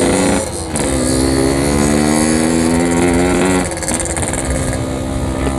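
Yamaha RX-King's 135cc single-cylinder two-stroke engine and exhaust under way: the revs dip briefly near the start, hold and climb slowly for about three seconds, then fall as the throttle eases off to a lower, steady running note.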